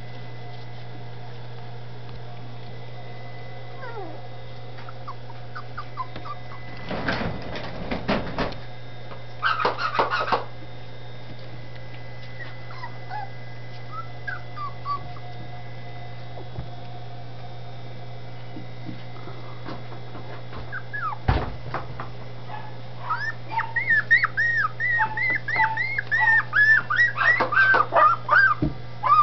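Litter of young dachshund puppies whimpering and yelping, a few faint whines at first, then a fast run of short high yelps, several a second, growing louder over the last several seconds. Two short bursts of rustling noise come about a third of the way in, over a steady low hum.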